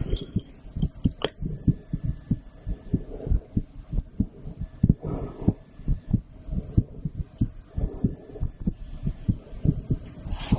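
A woman's heartbeat heard through a stethoscope: a steady run of paired low thumps, lub-dub. A few brief sharp clicks sound in the first second or so.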